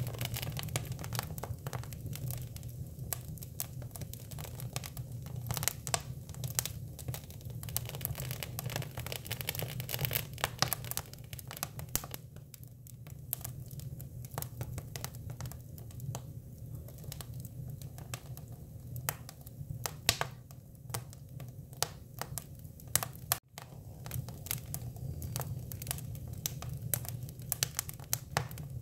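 Hinoki (Japanese cypress) wood fire crackling, with irregular sharp pops over a steady low rumble. The sound breaks off for an instant about 23 seconds in.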